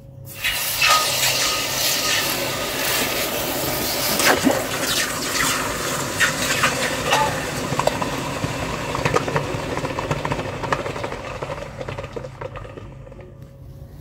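A freshly cast, still-hot copper-zinc bronze ingot being quenched in water: a steady sizzle of boiling water with many small crackles, dying away near the end as the metal cools.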